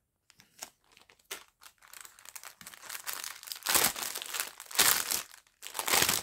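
Clear plastic packaging bags being handled and crinkled, with faint rustles at first that grow into louder crinkling in the second half.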